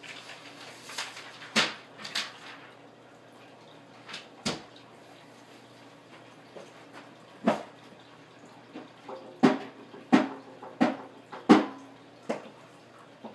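Irregular knocks and thumps from an electric guitar being handled and bumped, several followed by a brief low ringing, the loudest grouped in the last few seconds.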